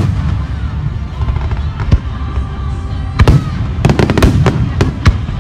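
Aerial fireworks shells bursting high overhead: a single bang about two seconds in, then a quick cluster of sharp bangs in the second half, over a steady low rumble.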